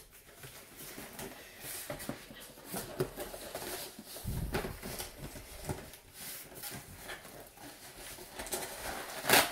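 Cardboard shipping box being handled and its top flaps pried open: scattered scrapes, rustles and small knocks, a dull thump about four seconds in, and a louder sharp scrape near the end.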